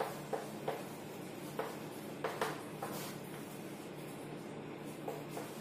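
Chalk tapping and scraping on a chalkboard as words are written and underlined: short irregular taps, most of them in the first three seconds, over a low steady hum.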